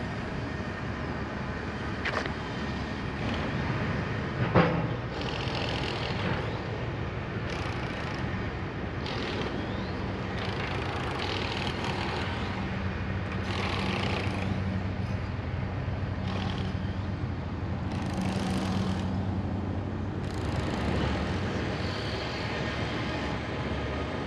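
Steady background noise of distant engines and road traffic, with a low drone through the middle stretch. Two faint knocks come in the first few seconds.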